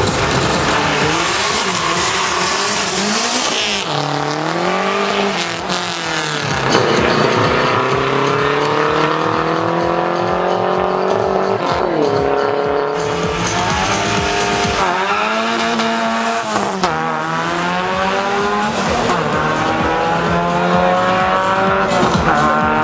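Drag-racing car engines accelerating hard through the gears down a quarter-mile strip: the engine pitch climbs and drops sharply at each upshift, several times over.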